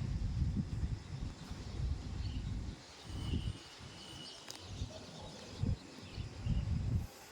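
Strong wind gusting over the microphone in uneven low rumbling buffets that rise and drop every second or so.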